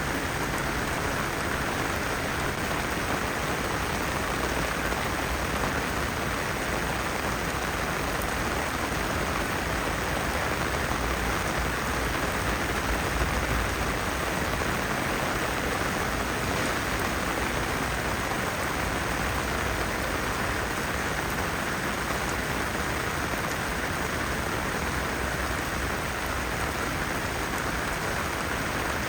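Heavy typhoon rain falling steadily, a constant hiss of rain on surfaces.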